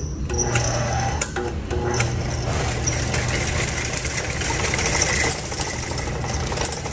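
Electric drum-type drain cleaning machine (drain snake) running steadily, its motor spinning the drum and coiled cable, during a test run to check that it works.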